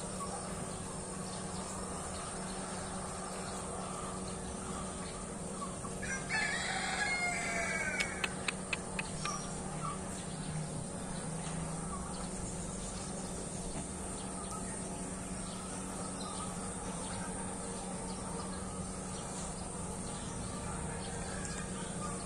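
A single drawn-out bird call about six seconds in, lasting about two seconds, followed by a few sharp clicks, over a steady background hum and hiss.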